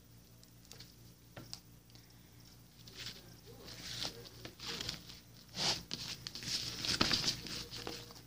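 Pale yellow slime being stretched and then squeezed and folded in the hands, making irregular squishing and popping noises. It is faint with a few clicks at first, then gets busier and louder from about three seconds in.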